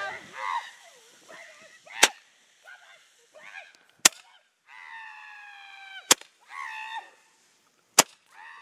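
Roman candle firing its balls of fire: four sharp pops, evenly spaced about two seconds apart.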